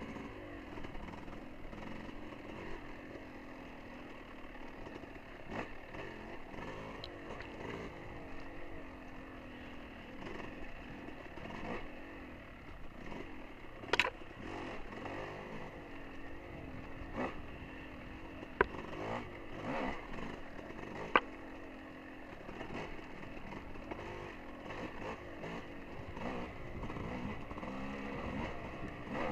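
Dirt bike engine running along a trail, its pitch rising and falling with the throttle. A few sharp knocks stand out about halfway through and again a few seconds later.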